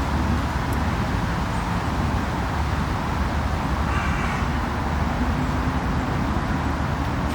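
Steady urban road-traffic noise: a continuous wash of passing vehicles with a low engine hum.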